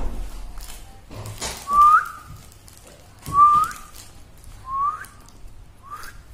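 Someone whistling four short notes about a second and a half apart, each sliding upward at the end, with brief rustling between the first ones.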